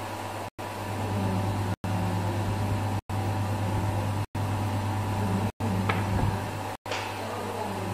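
A steady low machine hum, cut by short silent gaps about every second and a quarter, with a faint tick about six seconds in and another a second later.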